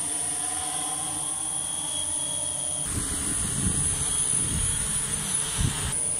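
Several large multirotor drones hovering, their propellers and motors making a steady hum with a high whine.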